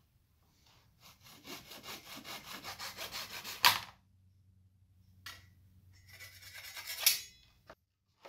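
Flush-trim hand saw cutting through excess maple on an inlaid ring in quick rhythmic strokes, about five a second. The strokes end in a sharp crack as the waste strip breaks away. Near the end comes a scrape and a loud knock of tools being handled.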